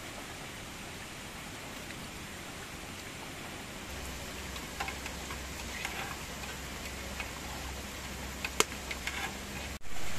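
Steady hiss of rain and running water. About four seconds in a low hum joins, with scattered faint crackles and ticks from a wood fire burning under a pot on a clay stove, one of them sharper. There is a short louder noise at the very end.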